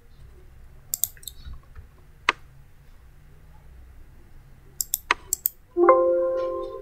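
Computer mouse clicks: a few single clicks, then a quick run of clicks about five seconds in. Right after, a short pitched alert chime sounds and fades out over about a second, the software's signal for a warning message.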